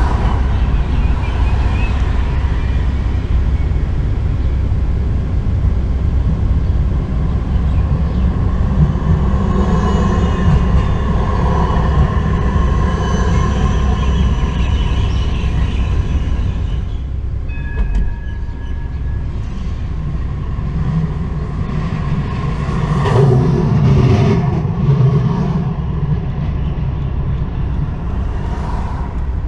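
Street tramway heard from inside a stopped car: a steady low rumble of traffic and trams, with a high electric whine in the middle and a louder passing rumble with a few knocks about three-quarters through as a Siemens Combino tram comes close.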